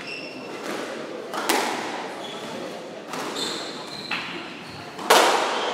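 A squash ball being struck by racquets and hitting the court walls during a doubles rally: a sharp crack every second or so, the loudest about five seconds in. Short high squeaks of court shoes on the wooden floor come in between.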